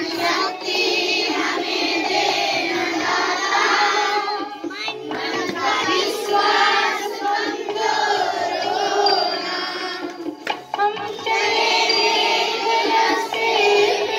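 Children singing a Hindi prayer song together, with a short pause between lines about ten and a half seconds in.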